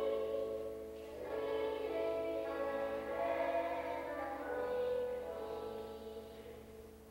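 Choir singing slow, held notes, the sound dying away near the end.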